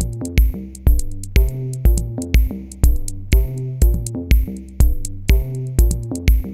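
Background electronic music with a steady drum-machine beat, about two thumps a second, under sustained bass and synth notes.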